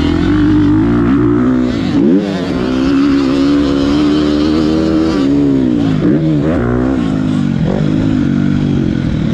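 A 2022 GasGas MC250F's 250 cc four-stroke single-cylinder engine running hard under the rider, heard from on board. Its pitch drops and climbs again as the throttle is rolled off and back on, about two seconds in and again around six seconds in.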